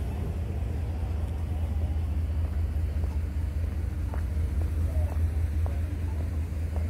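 Steady low rumble of city street ambience, with a few faint short sounds in the middle-to-late part.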